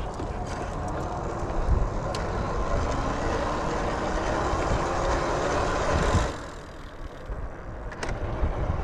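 A motor vehicle's engine running steadily, its pitch slowly rising, with road rumble; it drops away abruptly about six seconds in, then the rumble picks up again.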